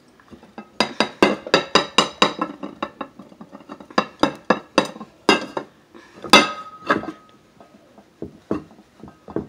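Fingers and nails tapping on upside-down bowls resting on plates, making sharp clinks: a quick run of taps, then scattered ones. One harder clink about six seconds in rings on briefly.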